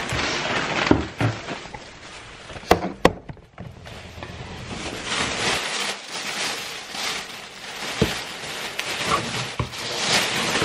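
Plastic shopping bag and plastic mailer bag rustling and crinkling as clothes are pulled out of them, with a few sharp knocks, two close together about three seconds in.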